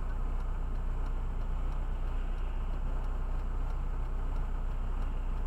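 A car's engine idling while it stands still, heard from inside the cabin as a steady low hum.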